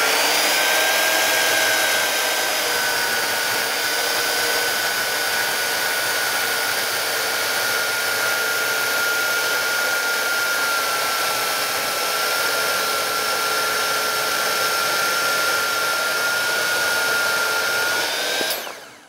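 Skilsaw corded carpentry chainsaw cutting through a 6x6 cedar post: a steady motor whine with chain noise, its pitch dropping a little as it bites into the wood. Near the end it rises briefly and then is switched off and dies away.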